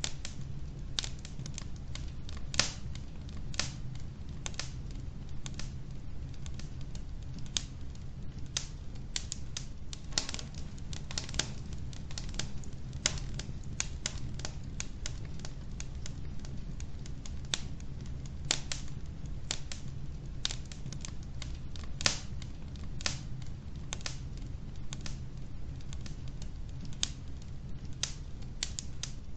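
Wood logs burning in a fireplace, crackling with frequent irregular sharp pops over a steady low rumble.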